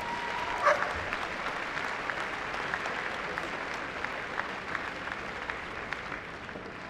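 Audience applauding, a dense patter of hand claps that eases off slightly near the end.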